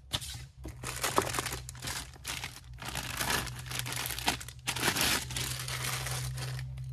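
Plastic packaging bag crinkling and rustling as parts are unwrapped and lifted out of a cardboard box.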